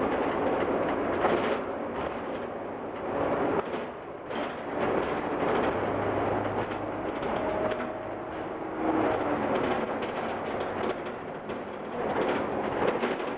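Ride noise inside a city transit bus on the move: steady engine and road noise, with the body and fittings giving many small clicks and rattles and a couple of brief whines past the middle.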